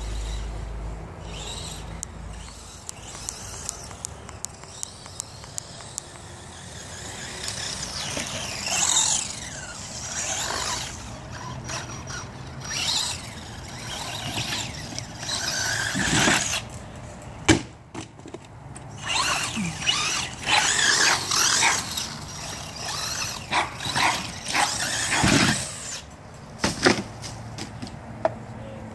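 Traxxas Slash RC short-course truck with a Castle 4600 brushless motor on a 2S LiPo, driven hard over dirt and ramps: repeated bursts of high motor whine and tyre noise as it accelerates. There are several sharp knocks of landings or impacts, the loudest about 17 seconds in.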